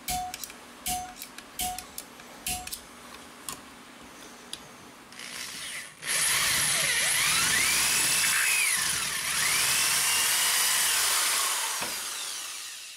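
A few light clicks and taps, then a drill press starts about six seconds in and bores through aluminium angle laid on a wood block. Its pitch sags and recovers twice as the bit bites, and it fades as the motor winds down near the end.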